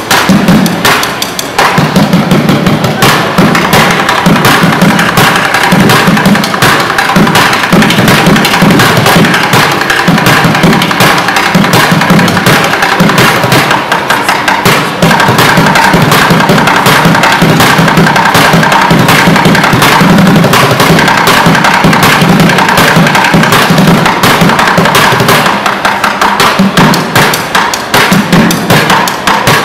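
Bucket drumming: wooden drumsticks playing a fast, continuous rhythm on upturned plastic buckets used as a drum kit.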